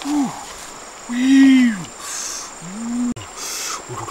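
A man's wordless exclamations, four short 'ooh'-like calls that rise and fall in pitch, the second the longest and loudest, with two brief hissing noises between them.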